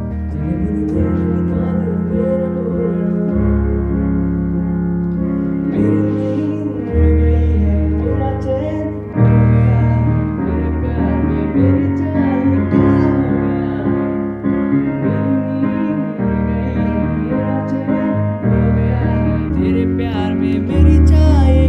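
Yamaha portable electronic keyboard played with a piano sound: held chords over a bass line that changes every second or two, with a melody line above.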